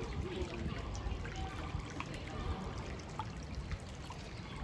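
Water trickling over a steady low rumble, with a few faint clicks.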